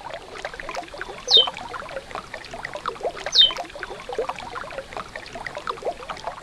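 River water trickling and gurgling, with two short whistled notes from a curió (chestnut-bellied seed finch), each sliding down in pitch, about two seconds apart.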